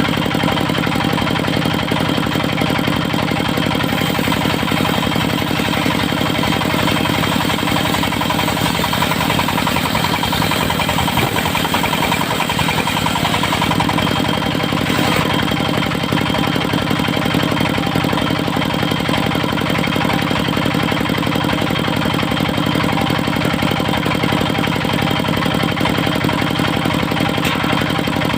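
Engine of a portable circular sawmill running steadily at a constant speed.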